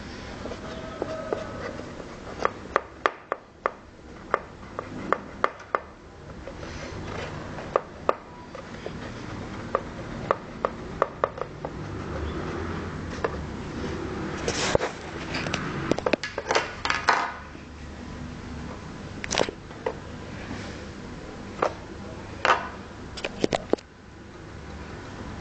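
Irregular sharp taps and clicks with rubbing and scraping from hands working on a white face mask. The taps come in bunches, loudest in the middle, over a steady low hum.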